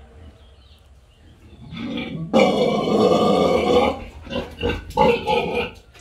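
A pig in its pen gives a loud, rough call lasting about a second and a half, beginning a little past two seconds in, then several shorter calls.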